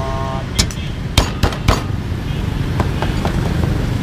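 Cleaver chopping pork on a wooden board: about nine sharp chops, bunched in the first two seconds and thinning out after, over a steady hum of street noise.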